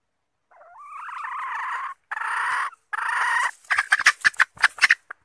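Chicken squawking in three drawn-out, harsh calls, then breaking into rapid clucking about three and a half seconds in.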